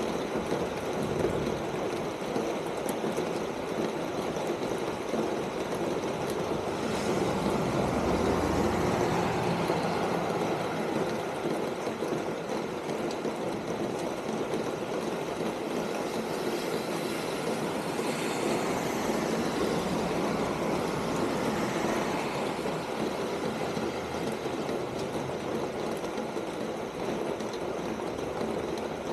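Steady rain falling on a corrugated metal roof, a dense, even patter. About a quarter of the way in it swells louder with a deeper rumble for a few seconds.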